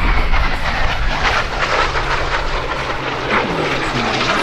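A TS-11 Iskra jet trainer's single turbojet engine passing low and fast, a loud rushing jet noise with a whine that falls in pitch as it goes by.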